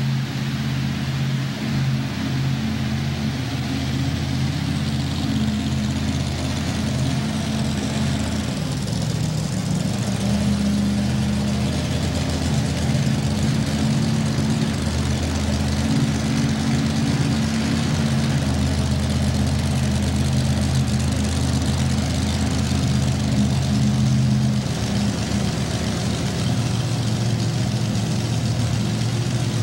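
Chevrolet-powered mini rod pulling tractor's engine idling with a steady low rumble, its pitch shifting a little as the throttle is eased on and off.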